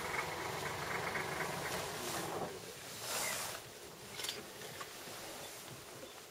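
Safari vehicle's engine running, which cuts out about two and a half seconds in. A brief rush of noise and a small click follow.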